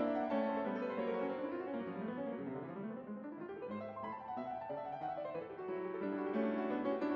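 Background piano music, with flowing runs of notes that fall and then rise partway through.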